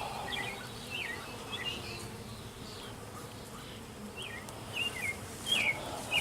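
Honeybees buzzing steadily around an open hive. Short high chirps keep coming over the hum, with a pause in the middle.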